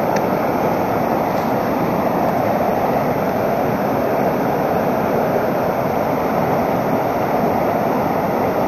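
Rapids of a fast mountain river, water rushing over rocks in a steady, unbroken rush.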